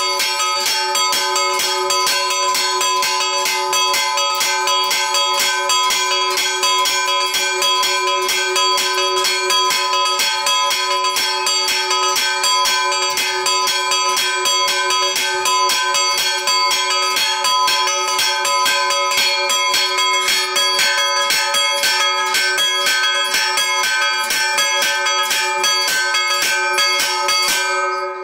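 Two bronze church bells struck by their clappers, swung by hand-pulled chains, in a rapid, unbroken peal of quick strikes. Near the end the strikes stop and the bells ring on, fading.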